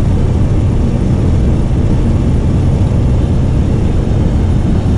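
Steady, loud drone of a small skydiving plane's propeller engine, heard from inside the cabin.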